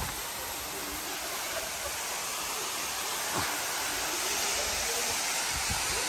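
Steady rushing hiss of a waterfall pouring down a rock face onto the rocks and pool below.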